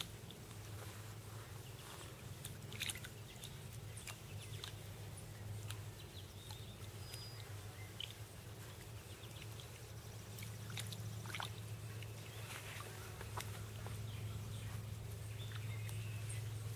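Channel catfish feeding at the pond surface: scattered small splashes and slurps as they take floating feed, over a steady low hum.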